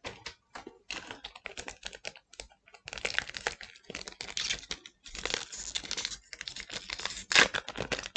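Trading cards from a freshly opened booster pack being flipped through and slid against one another: a run of quick clicks and soft rustles, with a sharper snap about seven seconds in.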